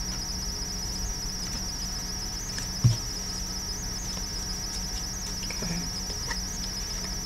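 Steady high-pitched insect trill with a fine, even pulse, continuing without a break, and one soft low thump about three seconds in.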